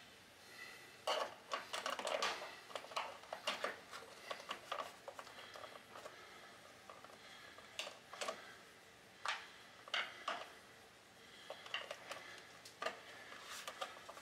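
Irregular small clicks, taps and rustles of hands handling electrical wires and a plastic twist-on wire nut in the wiring box of an electric water heater, as the wires are being disconnected. Busiest over the first few seconds, then scattered single clicks.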